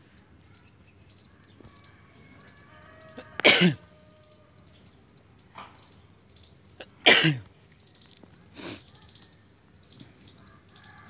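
A man coughing hard twice, about three and a half and seven seconds in, with two softer coughs between and after. Faint, regular high chirping runs behind.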